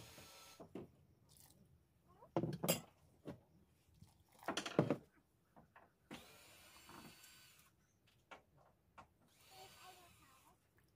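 Cleaver knocking on a wooden chopping board while cutting limes. Two louder clusters of knocks come about two and a half and five seconds in, with softer handling and rubbing noises after them.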